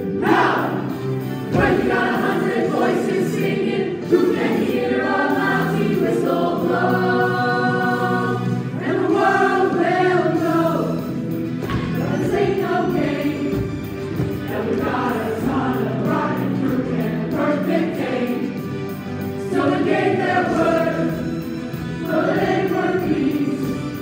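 A group of young voices singing together as a chorus over instrumental accompaniment.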